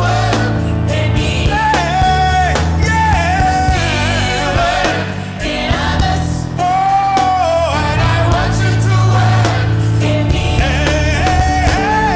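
Gospel worship song performed live: a lead singer holds long, wavering notes over a band with a sustained bass line and light percussion.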